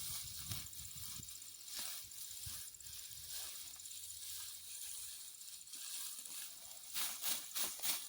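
Insects, crickets among them, chirping steadily in a fast even trill over a soft outdoor hiss, with faint rustling. About seven seconds in comes a quick run of four or five louder dry rustles.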